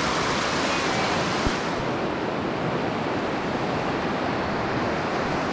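Muddy flash-flood water rushing steadily through a narrow sandstone slot canyon, a constant churning rush of turbulent water.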